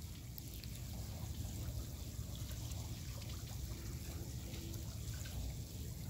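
Seawater running steadily into an earthen crab pond through an opened inlet gate.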